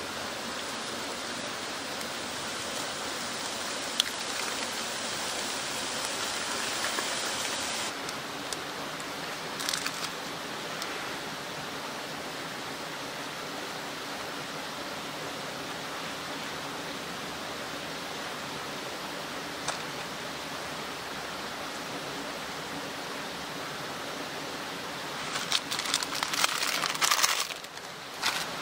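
A slice of ham sizzling on the grill of a small wood stove for the first several seconds, the sizzle stopping abruptly, over a steady rushing hiss. Near the end come a few seconds of crinkling plastic packaging.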